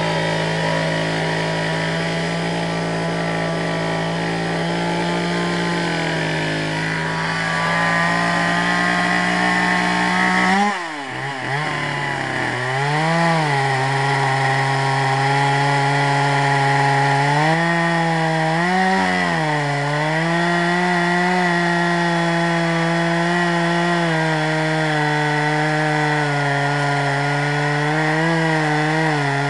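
Stihl 440 two-stroke chainsaw running at high throttle in a chainsaw mill, ripping a slab lengthwise through hard water oak. About ten seconds in the engine note drops sharply and briefly dips in loudness, then holds at a lower, loaded pitch with a few short dips as the cut bears on it.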